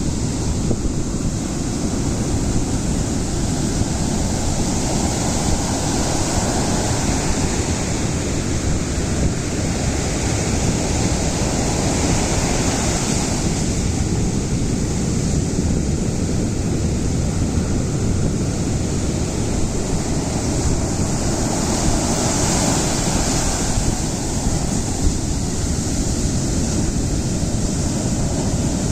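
Ocean surf: waves breaking and washing in a continuous rush that swells and eases every several seconds.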